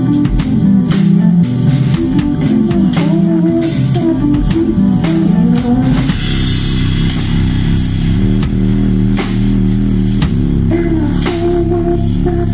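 Live rock band playing an instrumental passage, with drum kit and electric guitar over a steady low bass line. The drum strikes thin out about halfway through, then the beat picks up again.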